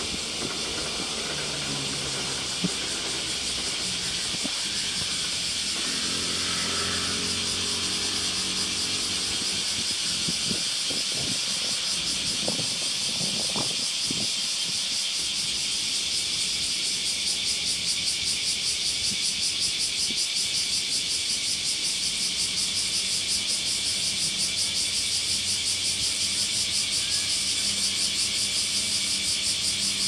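A dense chorus of calling frogs: a steady, high-pitched, rapidly pulsing din that grows more throbbing in the second half. A passing vehicle's low engine drone is heard briefly about a quarter of the way in.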